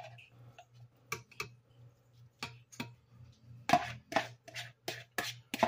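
Metal spoon tapping and scraping against a plastic mixing bowl while chopped vegetables are worked out of it: a few scattered sharp taps, then a quicker run of taps, about four a second, in the last two seconds.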